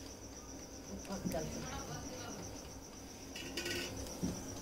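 A cricket chirping steadily: a high, even, rapidly pulsing trill that does not let up. Faint voices come in briefly.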